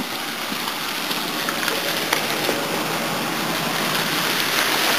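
Steady hiss of light rain falling on wet asphalt and puddles, growing a little louder toward the end, with a few faint ticks.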